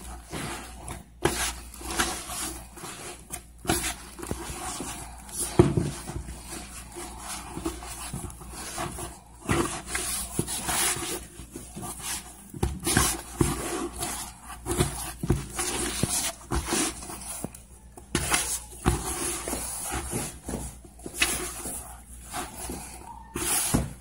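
Hands mixing and kneading sticky polvilho (cassava starch) cheese dough as more starch is worked in: irregular squishing and rubbing sounds, many short strokes of varying loudness.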